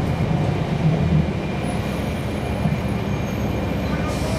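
Inside a NABI 40-SFW transit bus: its Cummins ISL9 diesel engine running, a steady low rumble mixed with cabin and road noise.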